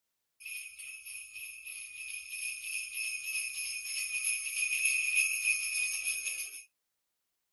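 Jingle bells shaken continuously for about six seconds, growing a little louder toward the end, then stopping abruptly.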